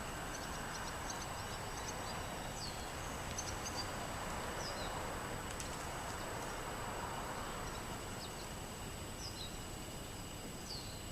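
Small birds calling with short, high, downward-sliding chirps, scattered singly and in little clusters, over a steady outdoor background hum.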